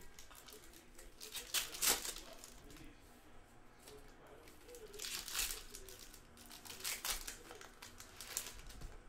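Plastic wrappers of Panini Hoops basketball card packs crinkling and tearing as they are ripped open, in four separate bursts.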